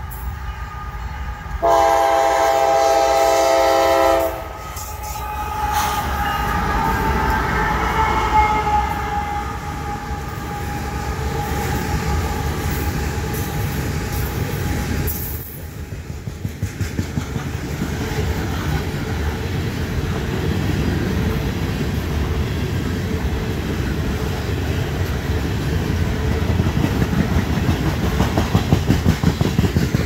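CSX loaded coal train passing a grade crossing. The locomotive's horn sounds one loud chord lasting a couple of seconds, about two seconds in. Then comes a steady rumble of the heavy coal hopper cars rolling by, with a rhythmic wheel clatter over the rail joints that grows louder near the end.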